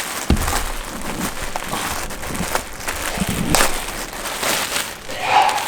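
Plastic packaging and a T-shirt rustling and crinkling while being handled and unfolded, with irregular small crackles and clicks.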